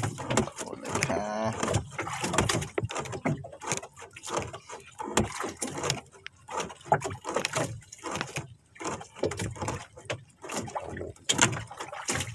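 Fishing handline being hauled in hand over hand on a small boat: a steady run of irregular knocks, clicks and rubbing from the hands and line.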